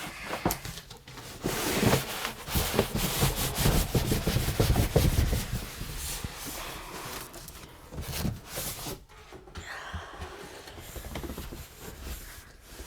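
Large cardboard shipping box being lifted up and off, cardboard scraping and rubbing with scattered knocks and rustles, louder in the first half and quieter after about eight seconds.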